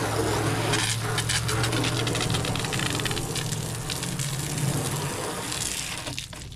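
Water spraying from a hose wand onto a plastic kayak hull: a steady hiss with spatter, over a low steady hum. It trails off shortly before the end.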